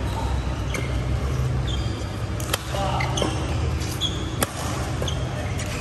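Badminton rally: rackets strike the shuttlecock with several sharp cracks at irregular intervals, mixed with short high squeaks of shoes on the court floor, over a steady low hum of the hall.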